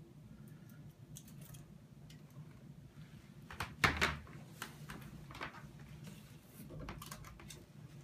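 Plastic parts of a Shark upright vacuum being handled: a few sharp clicks and knocks, the loudest about four seconds in, over a faint steady low hum.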